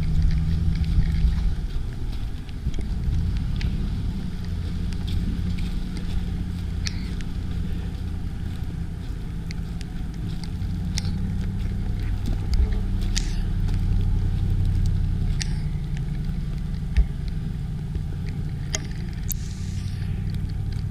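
The Ram 1500 Rebel's 5.7-litre HEMI V8 runs at low, steady revs as the truck crawls along the trail, with a few faint ticks over it.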